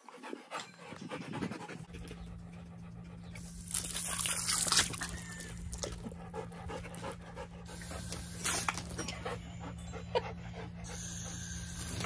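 A dog panting close by, with a hose spray hissing on and off in three bursts as water is sprayed at the dog.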